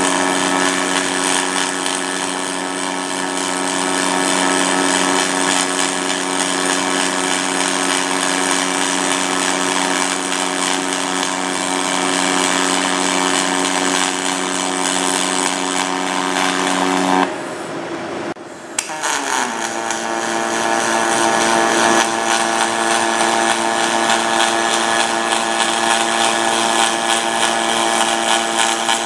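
Pulse-on-pulse MIG arc welding aluminum with 4043 wire: a steady buzzing hiss with a pitched hum. The arc breaks off about seventeen seconds in and starts again a second and a half later at a slightly different pitch.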